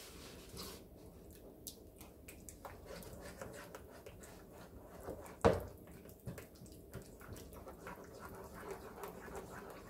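Metal spoon stirring thick flour batter in a bowl: soft, irregular wet clicks and slaps, with one sharper knock of the spoon about halfway through.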